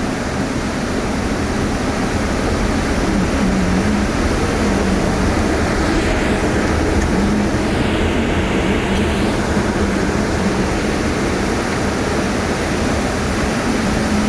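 Steady road noise of a car being driven: low rumble of tyres and engine with a faint wavering hum.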